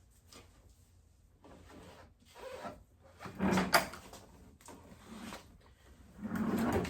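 Objects being handled and shifted about, a series of knocks, scrapes and rattles that grow louder, with a sharp knock a little past the middle.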